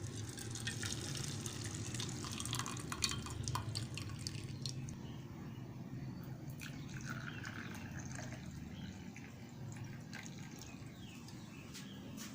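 Liquid dripping and trickling in a kitchen, with many irregular small clicks and splashes, busiest in the first few seconds and thinning out after, over a steady low hum.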